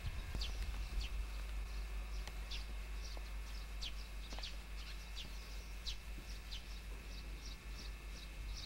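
A small bird chirping over and over, short high chirps that drop in pitch, about two a second, over a steady low rumble.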